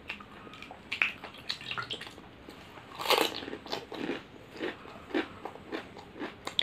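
Close-up crunching and chewing of pani puri: crisp, hollow fried puri shells filled with spiced water being bitten and chewed, a string of small crackles with the loudest crunch about three seconds in.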